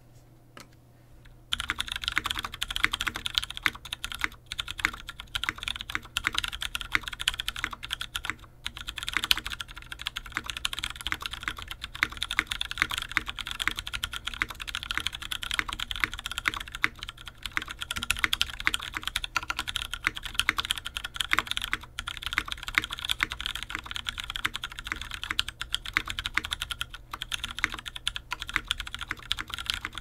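Continuous fast typing on a mechanical keyboard with lubed Ergo Clear tactile switches on an aluminium plate in a UTD 360c case, with GMK keycaps: a dense stream of keystrokes that starts about a second and a half in, after a few faint clicks.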